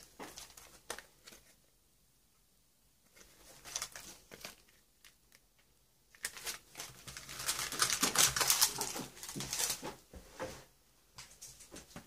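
Clear plastic packaging of craft supplies crinkling and rustling as it is handled, with scattered clicks and taps. The crinkling is densest and loudest from about six to ten seconds in.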